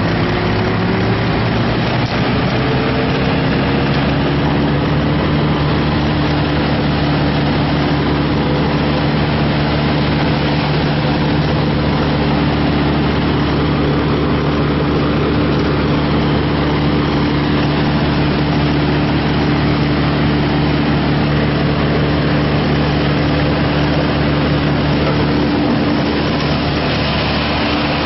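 A large engine revving up over the first few seconds, then running steadily at high speed.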